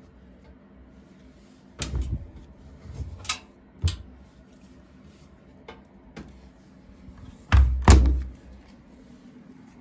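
A Siemens washing machine being handled: scattered knocks and clunks, the loudest a pair of heavy thuds near the end.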